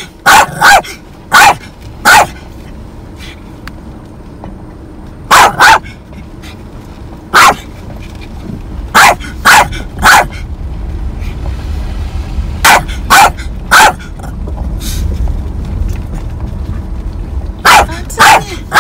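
Small dog barking from inside a moving car, about fifteen short sharp barks in ones, pairs and threes, over the low rumble of the car.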